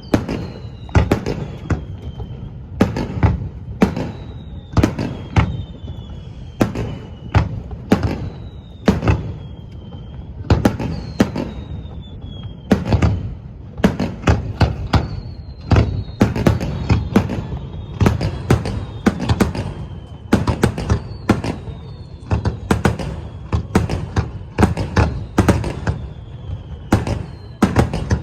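Aerial fireworks going off in quick succession: sharp bangs, several close together at times, over and over, with whistling shells sounding thin high whistles that fall a little in pitch.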